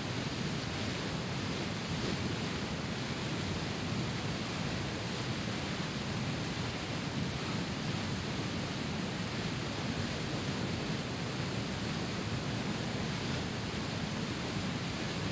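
Swollen river cascading in whitewater rapids over rock ledges, a steady, unbroken rush of water.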